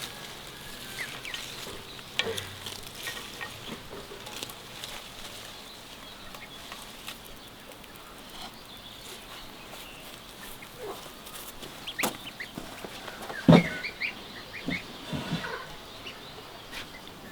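Chickens clucking now and then over quiet outdoor background, with scattered short clicks and knocks and one louder sudden sound about thirteen seconds in.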